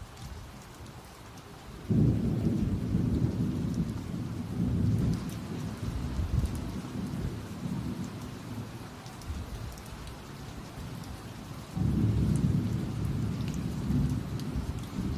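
Rain falling steadily during a thunderstorm, with a sudden peal of thunder about two seconds in that rumbles on for several seconds before fading, and a second peal near the end.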